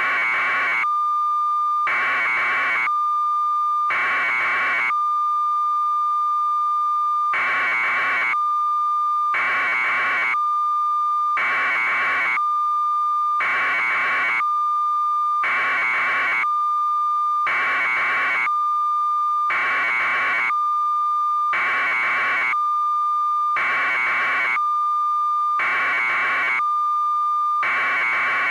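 A steady, high electronic tone with a harsh buzz pulsing on and off about every two seconds, like an alarm.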